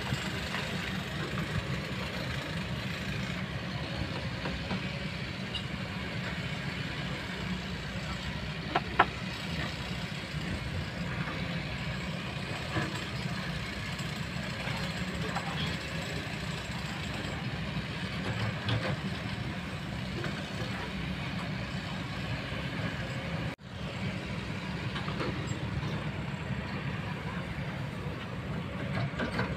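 Kobelco long-reach excavator's diesel engine running steadily as the machine works, with one sharp knock about nine seconds in.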